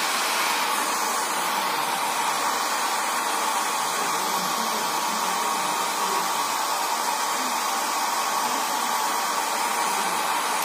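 Handheld electric hair dryer running steadily, blowing air with a constant rushing whir and a hum around 1 kHz. It cuts off abruptly at the end as it is switched off.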